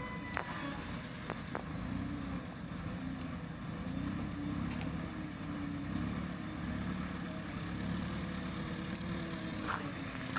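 An engine runs over a steady low rumble, its pitch wandering up and down, with a few faint clicks.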